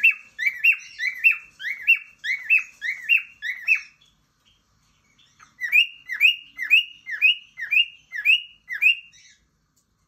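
Cockatiel calling in two runs of short, rising-and-falling chirps, about two or three a second. The first run is about ten chirps long; after a pause of a second or so, a second run of about eight follows.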